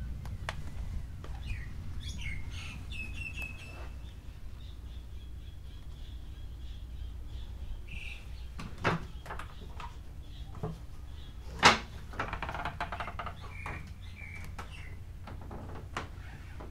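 Small birds chirping and trilling in short bursts, heard through the open windows of a ship's steel bridge. A few sharp knocks from footsteps on the metal deck plating cut through, one much louder about two-thirds of the way in. A steady low rumble sits underneath.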